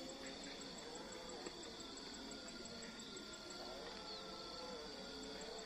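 Faint outdoor ambience of insects: a steady high trill with a fast, even pulse of chirps above it.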